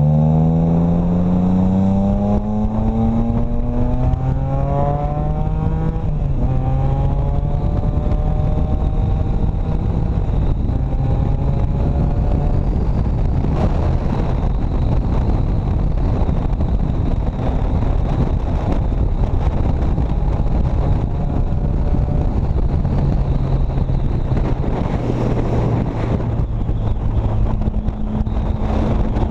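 Motorcycle engine heard from the rider's seat, accelerating away and shifting up through several gears, its pitch climbing and dropping back at each shift, then settling into a steady cruise under constant wind rush.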